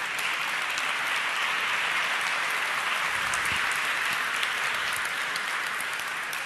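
Large audience applauding, a dense, even patter of many hands clapping that eases off slightly near the end.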